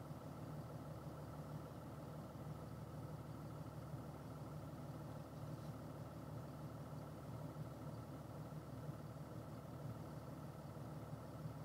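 Box truck's engine idling steadily, a constant low hum heard inside the cab.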